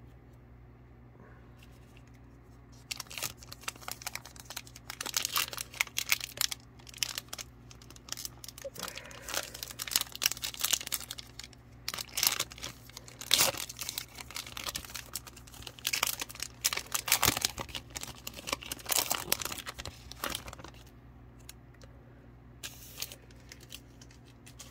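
Foil wrapper of a trading card pack being torn open and crumpled by hand: crackling and crinkling in quick bursts, starting about three seconds in and stopping around twenty seconds in.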